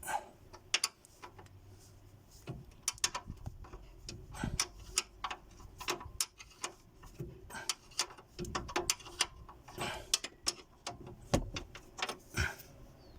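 A 14 mm ring spanner clicking and clinking on a bolt in short irregular strokes, loosening the stabilizer-link bushing bracket bolts of a Suzuki Grand Vitara.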